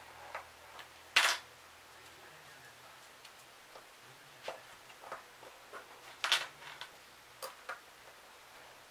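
Small metal engine parts clicking and scraping as the cylinder head of an OS FS-70 Surpass four-stroke model engine is handled and worked by hand. A sharp click comes about a second in and a cluster of clicks a little after six seconds, with lighter ticks scattered between.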